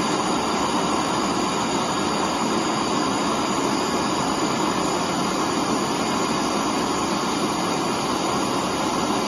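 Gas torch flame burning steadily with an even, rushing hiss.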